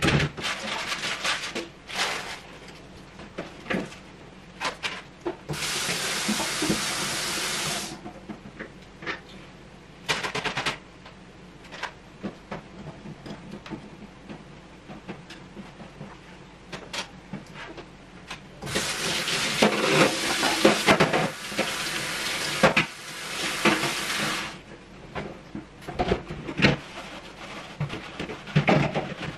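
Kitchen tap running twice, once for about two seconds and later for about six, with sharp on and off. Clatter of pots, utensils and a drawer in between.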